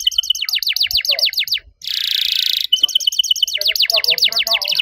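Domestic canary singing: a steady high trill breaks into a run of fast downward-sweeping whistles, then a harsh buzzy rattle about two seconds in, and the trill and falling whistles start again.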